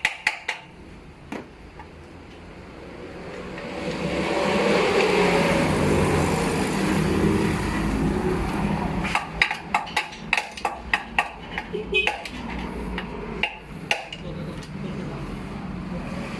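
A string of sharp clicks and taps at the start and again in the second half, like hand tools or metal parts being worked. A vehicle passes in the middle, rising and fading.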